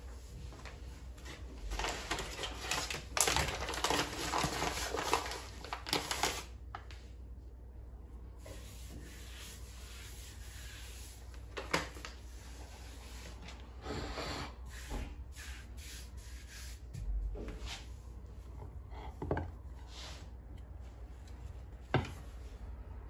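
Kitchen handling noises while baking: a few seconds of rubbing and scraping, then scattered light knocks and taps with a softer rustle in between.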